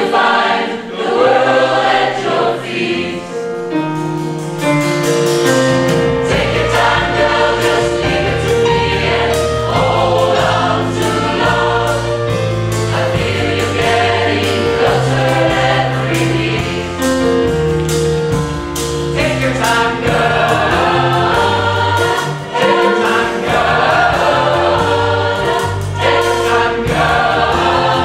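Mixed pop choir singing in chords, accompanied live by a band of drums, guitar and keyboard, with a steady beat; the low bass fills in about five seconds in.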